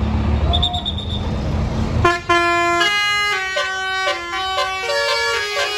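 A bus's low engine rumble, then about two seconds in a basuri telolet horn starts playing a melody, a quick run of changing musical notes from the roof-mounted horn trumpets.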